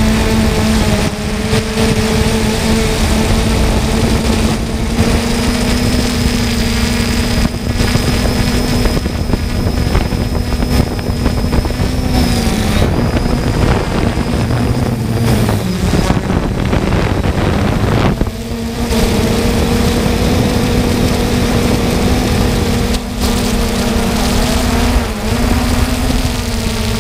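3DR Solo quadcopter's electric motors and propellers humming steadily in flight, with a faint high whine over a continuous rushing noise. The hum drops in pitch about twelve seconds in, wavers, and comes back steady after about eighteen seconds as the motor speeds change.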